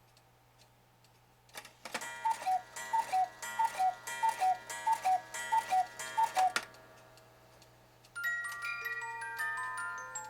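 Schmeckenbecher cuckoo clock striking the hour: the mechanism clicks, then seven two-note cuckoo calls, falling high to low, each with a ringing strike. After a short pause the clock's music box starts playing a tune.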